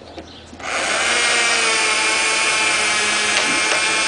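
Cordless drill starting up less than a second in and running steadily, driving a screw, on a nearly dead battery.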